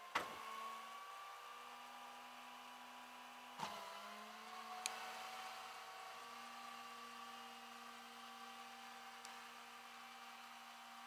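Faint steady hum of a flatbed tow truck idling, a few held tones that shift slightly in pitch about three and a half seconds in. A sharp knock comes just after the start and another about three and a half seconds in, with a light click near five seconds.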